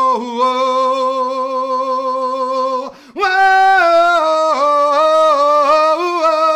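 A man singing unaccompanied, holding long high notes with a wavering pitch. He breaks off for a breath about three seconds in.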